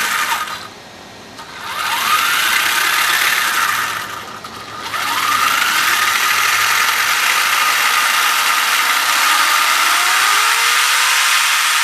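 DEERC 14210 RC car's electric motor and drivetrain revving up under throttle, a high whine that rises in pitch and then holds. It comes in bursts: a short run of about two seconds, then from about five seconds in a long steady run near full throttle.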